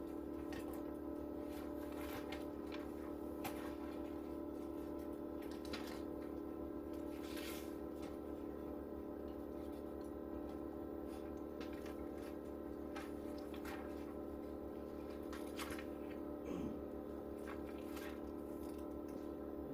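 Steady hum of a machine running in the room: a low drone with several held tones. Short rustles and clicks of paper pages being turned come now and then.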